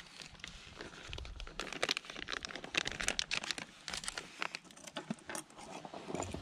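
A food packet crinkling and rustling as it is handled, a dense run of crackles for several seconds.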